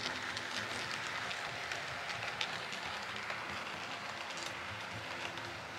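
H0-scale model train, a model SU46 diesel locomotive with a passenger coach, running along the layout track: a steady rattling rush of wheels on the rails with scattered sharp clicks, easing slightly near the end as it moves off.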